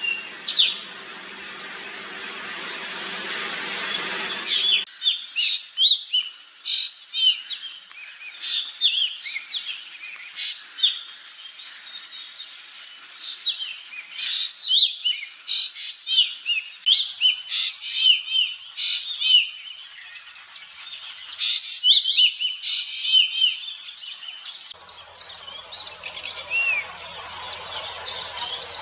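Birds calling: many short chirps and gliding notes in quick succession. The background changes abruptly about five seconds in and again near the end, where separate recordings are joined.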